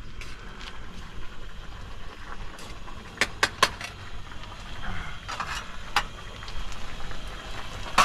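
Outdoor background with a steady low rumble, broken by a few sharp clinks: three in quick succession a little over three seconds in, and a few more about five to six seconds in.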